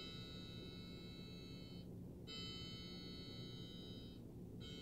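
A quartz grandfather clock's electronic 8-bit chime plays the same bell tone three times, about 2.3 seconds apart. Each tone rings for nearly two seconds and then cuts off abruptly.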